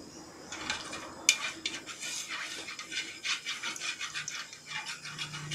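Hot cooking oil in a steel wok crackling and spitting in irregular pops as it is tested for frying heat, with a sharp tap on the wok about a second in. The oil has reached frying temperature.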